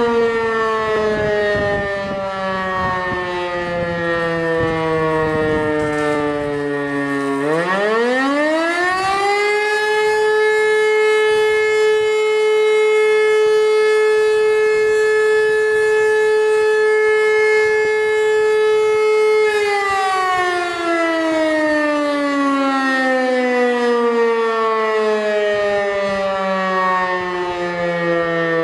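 German E57 electromechanical motor siren sounding the 'Feueralarm' fire-brigade signal. Its falling tone spins up sharply again about seven seconds in, holds one steady high tone for about twelve seconds, then slowly winds down.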